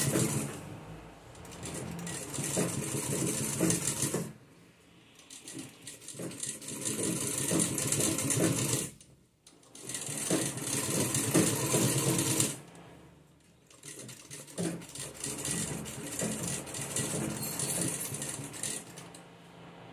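Sewing machine stitching in several runs of a few seconds each, stopping briefly between them while the fabric is turned.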